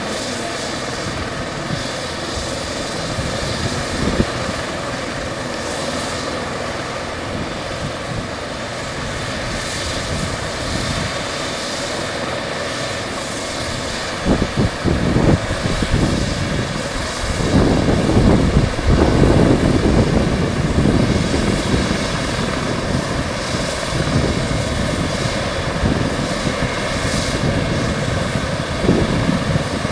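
Eurocopter EC135 police helicopter running on the ground with its main rotor turning: a steady turbine whine over the rotor's whooshing noise. The low rushing noise swells louder for several seconds around the middle.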